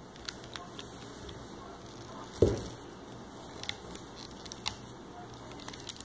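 Small scattered clicks of rubber bands being hooked and pulled over the plastic pegs of a rubber band loom, with one louder low thump about two and a half seconds in.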